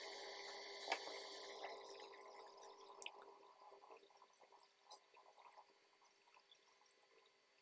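Near silence, with a few faint soft clicks and rustles of paper strips being handled and pressed into place, the clearest about a second in and about three seconds in.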